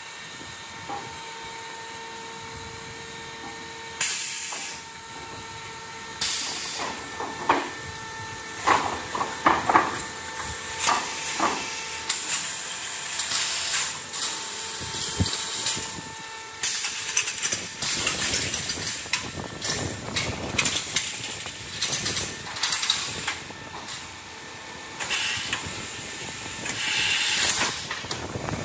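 SAIZAR automatic strapping machine running a transversal and longitudinal strapping cycle. A steady motor hum gives way, about four seconds in, to repeated sharp hisses of air and many clacks and knocks as the strapping heads work.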